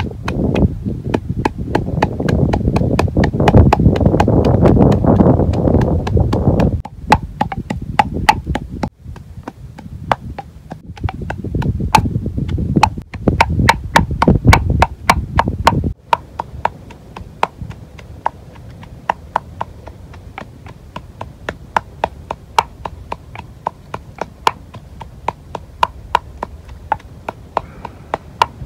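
Wooden pestle pounding chilies in a clay mortar: a steady rhythm of knocks, about two a second. For roughly the first fifteen seconds the strokes are heavy, with a dull deep thud, then they turn to lighter, sharper knocks.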